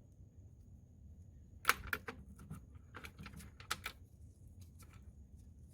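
Small hard objects clicking and clattering as they are picked through and moved around in a toolbox: a loud cluster of clicks about two seconds in, then a few more short runs of light knocks.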